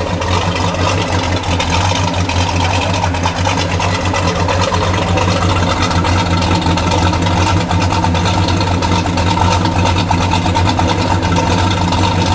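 1971 Pontiac GTO's 455 H.O. V8 idling steadily, heard at its dual exhaust tips.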